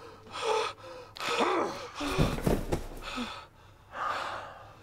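A man panting and gasping hard in fright: quick, uneven breaths, several of them catching into short voiced sounds.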